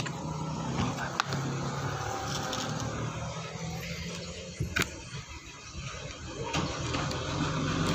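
A steady low engine hum, with a sharp click about a second in and a louder click near five seconds.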